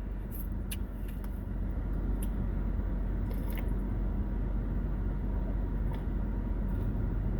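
Close-up eating sounds, a few faint smacks and clicks of chewing pho noodles, over a steady low rumble.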